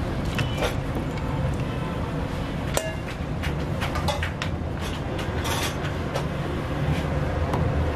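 Steel ladle stirring nihari broth in an aluminium pot, with repeated sharp clinks and scrapes against the pot as wheat-flour slurry is stirred in so it does not stick to the bottom. Under it runs a steady low rumble.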